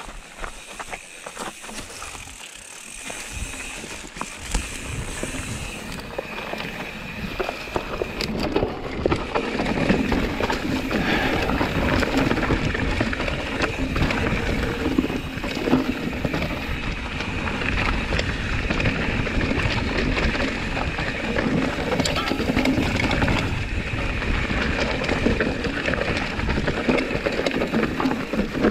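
Mountain bike ridden fast along a dirt forest singletrack: tyres rolling on dirt with frequent knocks and clatter from the bike over the trail, getting louder about nine seconds in as the speed picks up.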